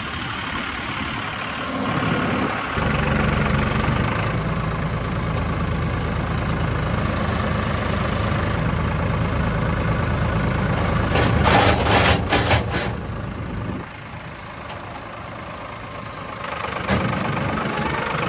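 A motor vehicle's engine running. It picks up and gets louder about three seconds in, with a cluster of sharp metallic clanks around twelve seconds, then drops back to a lower, quieter run.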